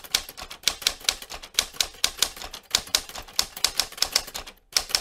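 Typewriter keys clacking in a quick, irregular run of strikes, about five a second, with a brief pause near the end. This is a typing sound effect laid under an on-screen title that types itself out letter by letter.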